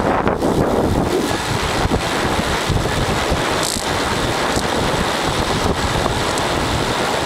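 Wind buffeting the microphone of a camera on a moving bicycle: a loud, steady rush of wind noise while riding at speed.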